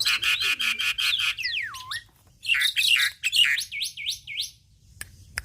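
Javan myna in full song: a fast chattering run of notes, then a whistle that swoops down and back up, then a series of looping rise-and-fall whistled notes. It stops about a second before the end, leaving one faint click.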